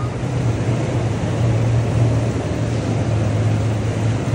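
A steady low machine hum over a busy background noise, a little louder after the first second.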